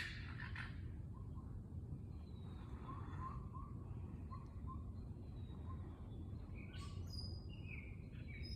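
Night-time calls of an unidentified animal: a string of short, rising, whistle-like "whoop" notes repeated over and over, with a few higher, harsher calls about seven seconds in, over a steady low background hum.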